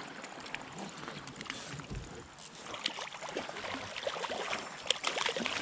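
Water splashing and sloshing at close range, with a string of small clicks and taps that grows busier over the second half.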